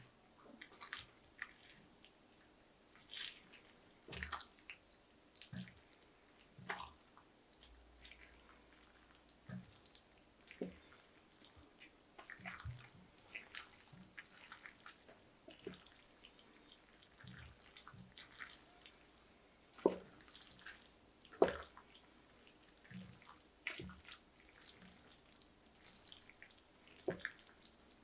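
Wooden slotted spatula stirring thick, creamy macaroni and cheese in a ceramic baking dish: irregular wet squelches and soft scrapes and taps against the dish, with two louder knocks about two-thirds of the way through.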